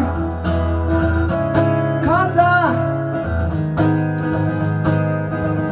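Acoustic guitar strummed in a slow ballad, with a man's voice singing one drawn-out, wavering phrase about two seconds in.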